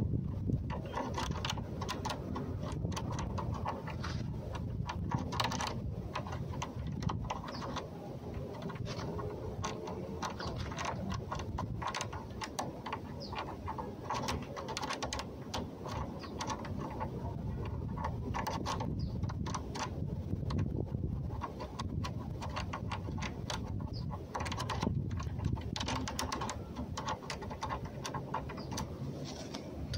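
Lock pick and tension wrench scraping and clicking inside a seven-pin Travex door lock cylinder, a long irregular run of small metallic clicks as the pins are picked one by one, over a low rumble.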